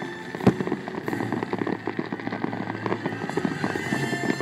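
Aerial fireworks bursting and crackling in quick succession, with one loud boom about half a second in.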